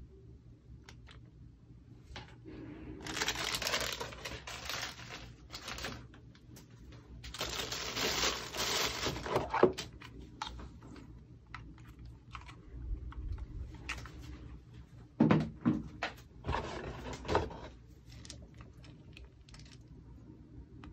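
Clear plastic packaging bags rustling and crinkling in several bursts as parts are unwrapped, with light clicks and a few knocks of hard parts being handled.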